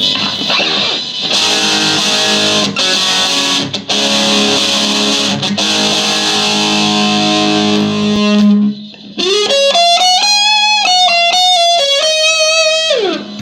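Fender Stratocaster played through a Fender Frontman Reverb practice amp's built-in distortion: distorted chord riffing with a fizzy top end, then from about nine seconds a held single-note lead line with bends and vibrato. A steady amp hum sits underneath. The tone is what the player calls terrible.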